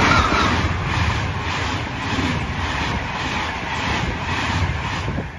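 InterCity passenger train headed by an E401 electric locomotive passing through at speed close by: the locomotive goes by, then its coaches, with a loud rush of air and wheel noise and a quick, even rhythm of wheel clacks on the rails. The sound cuts off suddenly near the end.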